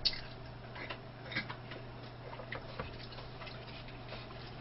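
Faint, irregular small clicks and ticks, a few each second, over a steady low electrical hum.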